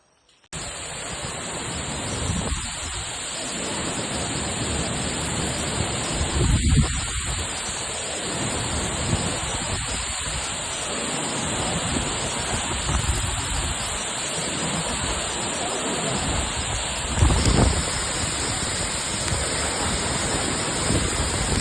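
Loud, steady rush of fast-flowing water from a waterfall and its canal. It starts suddenly about half a second in, with a few deeper swells every few seconds.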